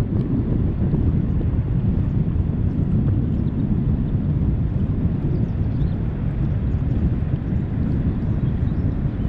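Steady low rumble of wind buffeting the microphone, with the river's current flowing beneath it; the wind is strong enough to keep the angler's light bait rig from carrying forward on the cast.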